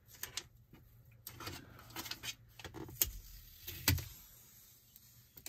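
Backing film being peeled off a screen protector by its pull tab inside a clear plastic alignment frame: soft rustles and small plastic clicks, with two sharper clicks about three and four seconds in.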